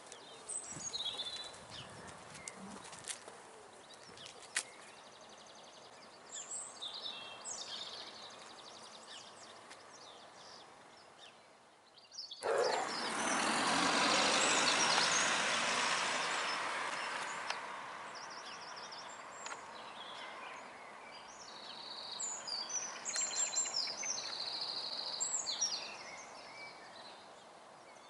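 Small songbirds chirping and singing in short phrases throughout. About halfway through, a passing vehicle's rushing noise starts suddenly, becomes the loudest sound, and fades away over several seconds.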